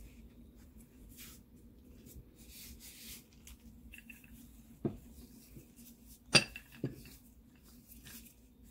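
Wooden rolling pin working a ball of dough on a floured wooden board: soft rubbing and brushing, with three short knocks between about five and seven seconds in, the middle one the loudest.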